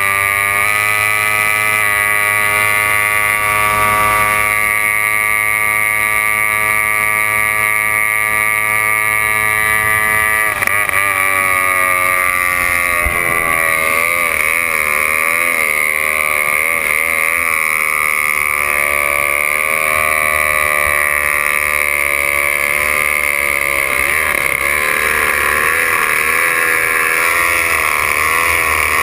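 Racing hydroplane's outboard engine running flat out: a loud, high-pitched engine note that holds steady, then from about ten seconds in wavers up and down in pitch as the revs rise and fall.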